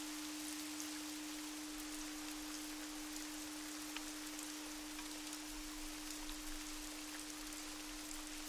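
Meditation soundscape: rain falling with soft scattered drop patter, under one steady, unchanging low pure tone.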